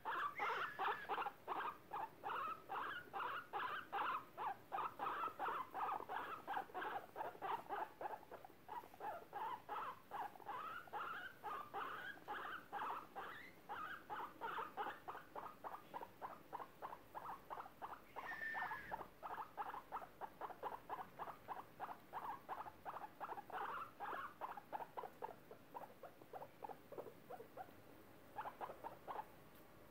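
Guinea pigs making a steady run of short, repeated squeaks, about three a second, while being held and stroked. One higher, rising squeak stands out about two-thirds of the way through.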